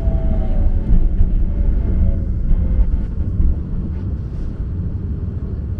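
Enoshima Electric Railway train heard from the driver's cab as it slows into a station: a steady low rumble of wheels and running gear, with the electric traction motors' whine falling in pitch and fading out about two and a half seconds in.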